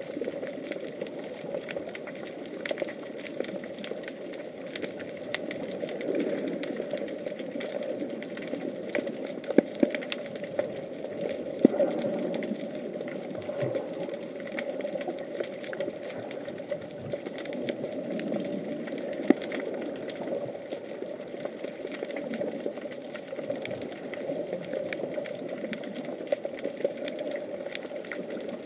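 Underwater sound picked up by an action camera in its housing: a steady muffled hum under a constant crackle of small clicks, with a few louder clicks.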